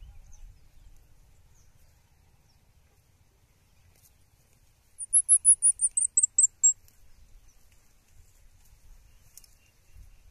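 A small bird's high, thin trill of about ten quick notes stepping down in pitch, lasting under two seconds, about five seconds in; it is the loudest sound. Around it, the faint low rustling and crunching of a cow grazing on dry brush.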